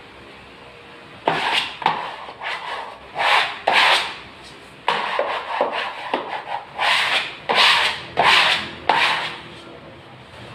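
Repeated short rubbing and scraping strokes against a papered wall during wallpaper repair, about fifteen quick strokes in two runs with a brief pause between them.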